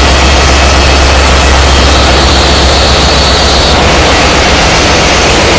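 Loud, steady din of a ship's engine room: running diesel machinery gives a deep hum under a rushing noise. A faint high whine sounds above it for a couple of seconds in the middle.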